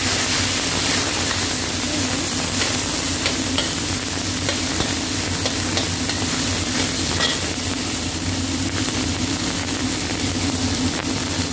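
Cucumber strips and garlic sizzling in hot oil in a steel wok, stir-fried with a slotted metal spatula that scrapes and clicks against the pan. Under it runs a steady low hum from a kitchen exhaust fan.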